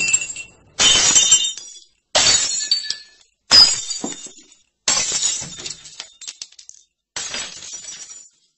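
Glass shattering again and again, about six smashes roughly a second and a half apart, each one sudden and then fading away: sound effects of street-lamp bulbs bursting.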